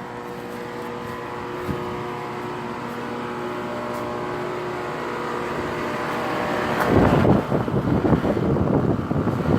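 An outdoor central air-conditioner condenser running, with a steady hum from its compressor and fan that grows louder. From about seven seconds in, a loud rough fluttering rush takes over, the condenser fan's air hitting the microphone. The fan motor is not sounding too good.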